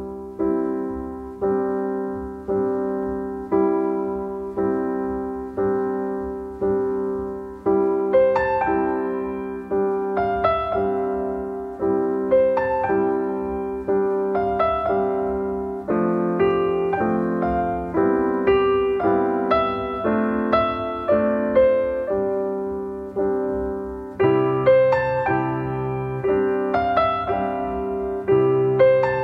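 Background piano music: a slow, gentle melody with notes struck about once a second and left to ring.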